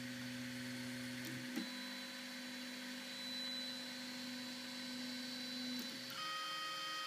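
ORD Bot Hadron 3D printer's stepper motors whining steadily as they drive all three axes home at the same time. One motor tone stops with a click about a second and a half in. The rest stops about six seconds in, leaving a steady high-pitched hum.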